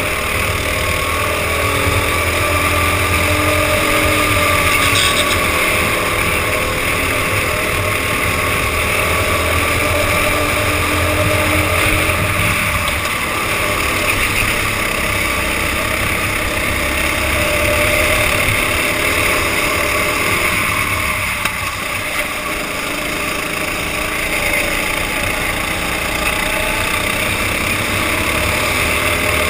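Go-kart engines running at racing speed, their pitch rising and falling as the throttle is opened and eased through the corners, with a short drop about three-quarters of the way through. Heard through a helmet-mounted camera, with other karts running close by.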